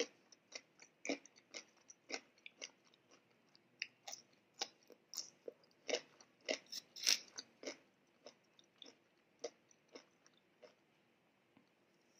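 Close-up chewing of a mouthful of food: a run of short, irregular mouth clicks that thins out over the last few seconds.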